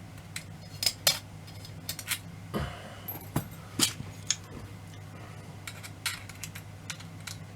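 Small metal torsion-clock parts clicking and clinking as they are handled and fitted by hand onto a nut. A dozen or so irregular light knocks, the loudest about a second in and again near four seconds, over a steady low hum.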